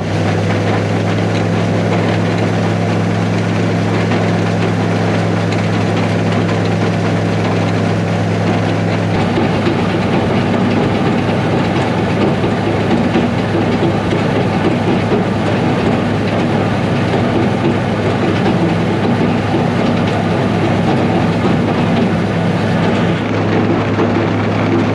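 Gleaner A2 combine running steadily: a constant engine hum with a mechanical rattle. The note changes about nine seconds in, and the rattle grows plainer after that.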